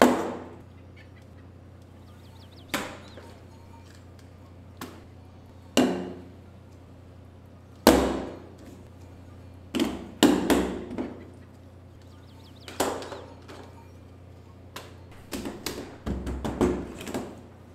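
Dough being slapped down and kneaded by hand on a floured wooden table: about a dozen irregular thuds, some in quick runs near the end, over a steady low hum.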